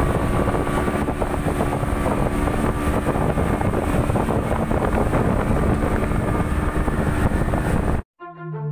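Boat engine running under way, with wind buffeting the microphone and a few steady engine tones. It cuts off abruptly near the end, and music comes in with a falling tone.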